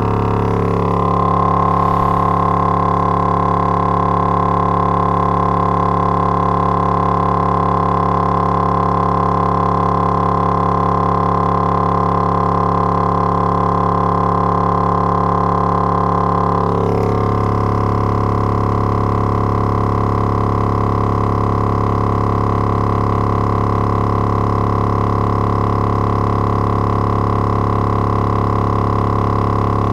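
Logitech Z5500 subwoofer driver, out of its enclosure, playing a 35 Hz test tone in free air under stress-test drive: a loud, steady drone with many overtones, its cone at large excursion. The tone's character shifts slightly about seventeen seconds in.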